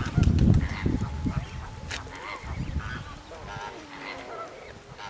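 Waterfowl giving short, wavering, goose-like honking calls, several times, over an irregular low rumble that is loudest in the first second and a half.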